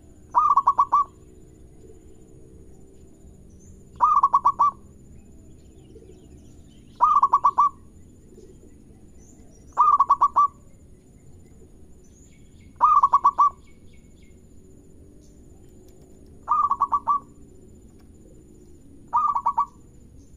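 Zebra dove (perkutut) cooing: seven short calls, about three seconds apart, each a quick run of rapid notes.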